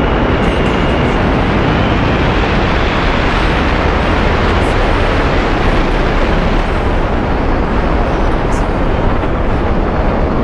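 Wind buffeting a camera microphone during a tandem parachute descent under an open canopy: a loud, steady rush of noise, heaviest in the low end.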